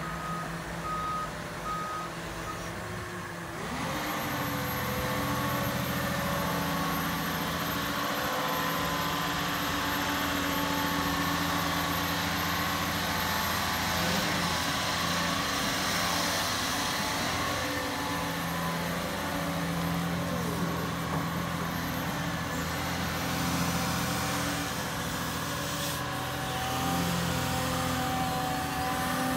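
Cat 323 excavator's warning alarm beeping steadily for the first couple of seconds, then its C7.1 diesel engine rising to working speed about four seconds in and running steadily with a high whine as the machine works its hydraulics.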